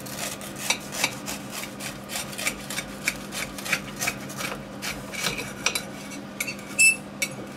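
A kitchen knife sawing through a toasted, grill-pressed sandwich: quick rasping strokes, a few each second, as the blade crunches through the crisp bread and scrapes the ceramic plate. Near the end one louder scrape with a short high ring of metal on the plate.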